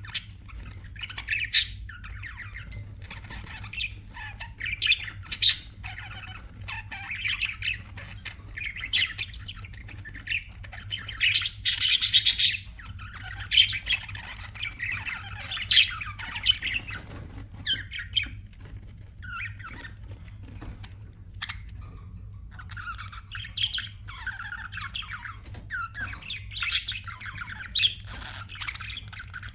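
Budgerigars chirping and chattering without pause, mixed with sharp squawks. The loudest, harshest squawk comes near the middle. A steady low hum runs underneath.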